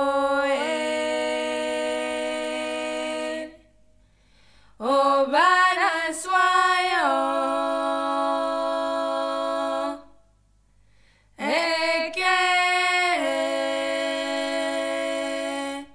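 A woman's voice singing unaccompanied: three phrases of long held notes that step up and down in pitch, with short pauses between them.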